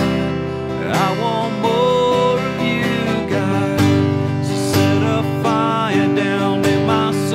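Acoustic guitar strummed in a slow worship song, with a man's voice singing long held notes over it.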